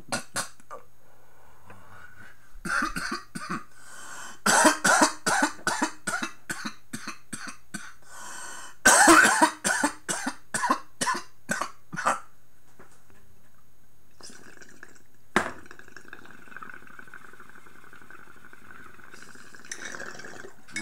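A man coughing in several rapid fits after a bong hit, dozens of harsh coughs over about ten seconds. Later a sharp click, then a steady hiss for several seconds as he draws on the water bong again.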